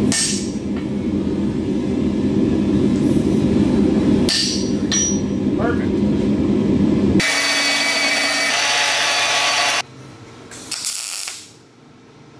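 Shop forge running with a steady low roar, with a few hammer blows on hot steel. About seven seconds in it gives way to a MIG welder crackling for about two and a half seconds, then one short tack weld about a second later, welding a forged hook onto a steel tube.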